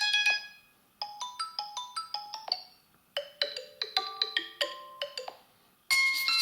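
Xiaomi Redmi A5 preset ringtones previewed one after another: short melodies of quick, clearly pitched notes, each cut off after a second or two with a brief pause before the next. One tone ends just after the start, two more play in full, and a new one begins near the end.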